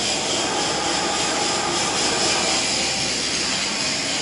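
Steady, even hiss of a robotic argon arc welding cell, with no distinct knocks or tones.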